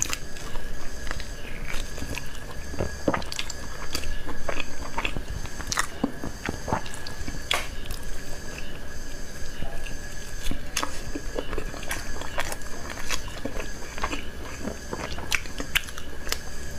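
Close-miked mouth sounds of biting into and chewing braised fatty pork: a steady run of sharp, wet clicks and crackles, over a faint steady high whine.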